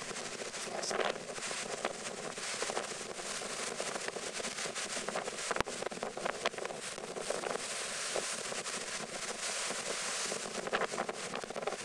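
Storm surf breaking and rushing in foam over rocks and broken seawall blocks, with wind buffeting the microphone.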